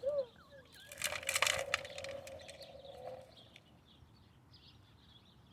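Small rocks clattering and rattling in a toy dump truck's bed, a short burst of clicks about a second in, then fading to quiet.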